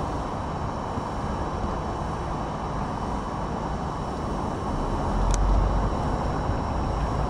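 Light-rail tram approaching: a steady rumble that grows deeper and louder in the second half, with one sharp click about five seconds in.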